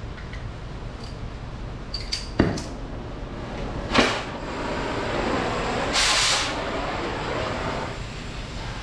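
Oxy-acetylene cutting torch being lit and burning: a few clicks and a sharp pop about two and a half seconds in, another pop around four seconds, then the flame's steady hiss, with a louder rush of hiss about six seconds in.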